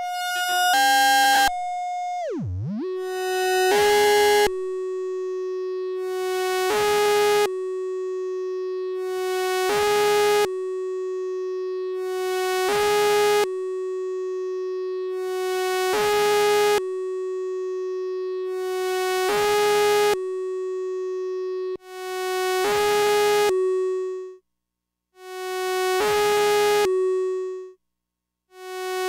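Infernal Noise Machine desktop analog synthesizer playing a steady drone, with a bright, buzzy pulse repeating about every three seconds. Near the start the pitch dives steeply and climbs back as a knob is turned. In the last few seconds the drone cuts out and swells back in between the pulses.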